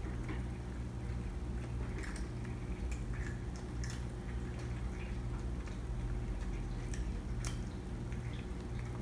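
A steady low hum with scattered faint clicks and taps from kittens moving about on a laminate floor.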